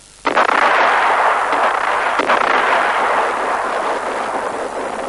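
Artillery shell explosions: a sudden loud blast, a second sharp crack about two seconds in, and a long noisy rumble slowly dying away.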